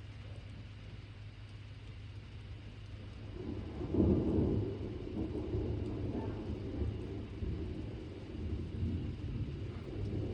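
Thunder: a low rumble swells suddenly about four seconds in and keeps rolling on, over the steady hiss of rain.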